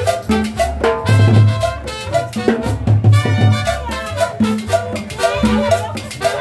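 A live band playing salsa on conga drum, upright bass and saxophone, with a steady bass line under the melody.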